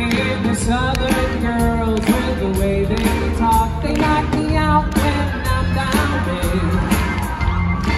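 Live band music with singing, from a group with upright bass, drums, keyboard, electric guitar, saxophone and trombone playing an upbeat rock and roll style number.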